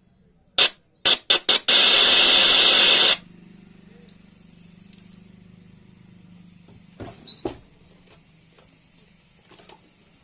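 Loud hissing: a few short bursts, then one longer hiss of about a second and a half that cuts off sharply, leaving a faint low hum with a couple of small crackles.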